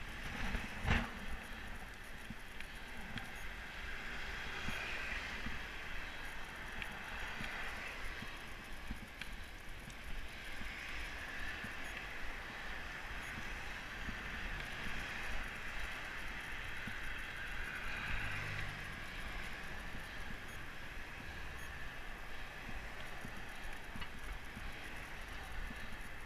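Road bike riding along a street, heard through a helmet-mounted action camera. Wind rumbles steadily on the microphone under a hiss of tyres and traffic that swells and fades several times. A single sharp click comes about a second in.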